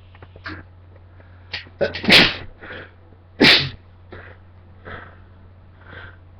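A person sneezing twice, loudly, about two and three and a half seconds in, each sneeze set off by a cotton swab tickling the inside of the nose; short quick breaths come before and between them.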